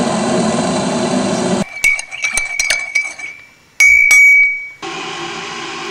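Liquid poured into a ceramic mug, then a teaspoon clinking against the mug with a ringing note as the tea is stirred, and one louder ringing tap about four seconds in. A steady rushing sound returns near the end.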